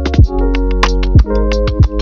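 Background electronic music: held synthesizer chords over a drum-machine beat, with a deep kick drum about once a second and crisp hits above it.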